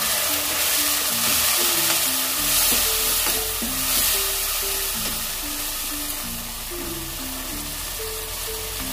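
Chopped tomatoes and browned onions sizzling in hot oil in a frying pan, stirred with a wooden spatula. The sizzle is loudest over the first four seconds or so, just after the wet tomatoes go in, then eases off.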